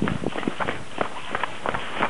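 Footsteps on brick paving: a quick, irregular run of short scuffs and taps, about four to five a second.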